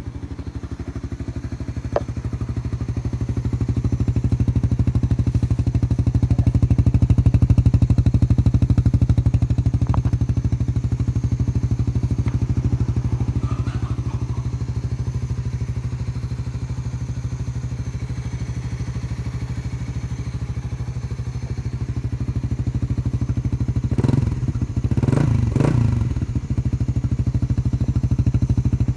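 Suzuki Satria motorcycle engine idling steadily through its exhaust, blipped to a few short revs near the end.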